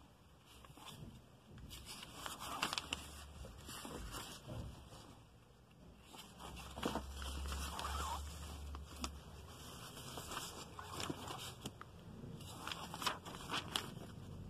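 Glossy paper catalog being handled and its pages turned: irregular rustling with scattered light taps and crackles.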